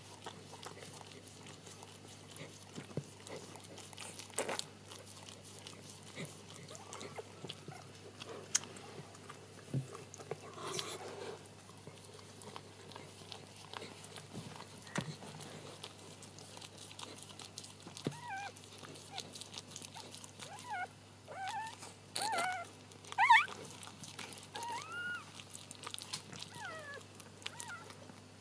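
Sheltie mother licking a newborn puppy, with wet clicking and smacking of the tongue. From about two-thirds of the way in, the newborn puppy squeaks in short, high, rising and falling whimpers.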